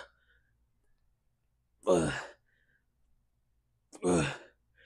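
A man breathing out hard through his voice, once on each pull of a barbell row. There are two short breaths about two seconds apart.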